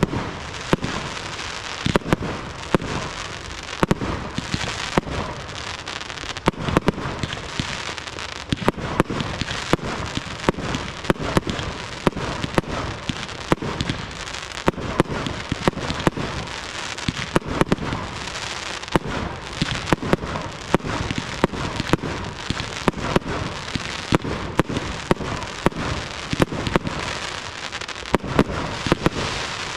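Fireworks display: a running barrage of aerial shells bursting with many sharp bangs in quick, irregular succession. A continuous crackling hiss fills the gaps between the bangs.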